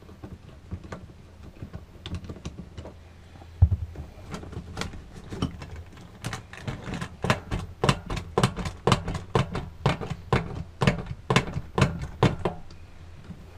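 Hand tools clicking against the motorhome's fresh water pump hose fittings: a single thump about three and a half seconds in, then a quick, uneven run of sharp clicks, about three a second, that stops shortly before the end.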